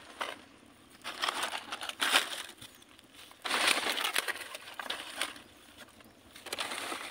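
Dry palmyra palm fronds rustling and crunching in several irregular bursts as they are handled and piled onto the fire, the longest burst just past the middle.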